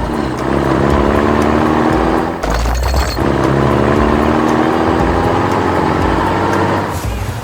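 Engine sound of a toy construction vehicle running with its pitch slowly climbing, broken about two and a half seconds in by a low heavy burst, then climbing again.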